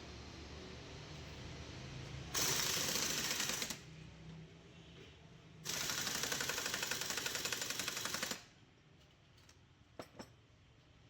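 Two bursts of rapid hammering rattle, a short one and then a longer one of about three seconds, typical of an impact wrench working a nut on an alternator being repaired. Two faint clicks near the end.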